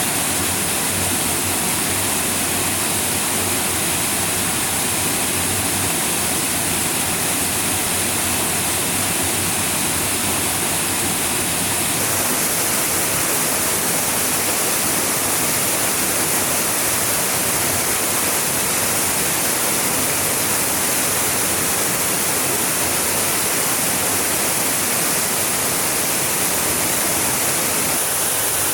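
Waterfall pouring close by: a loud, steady rush of falling water. Its tone shifts slightly about twelve seconds in.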